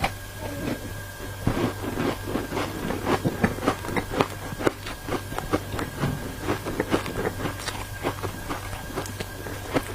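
Ice dusted with matcha powder being bitten and chewed close to the microphone: many irregular, crisp crunches, over a steady low hum.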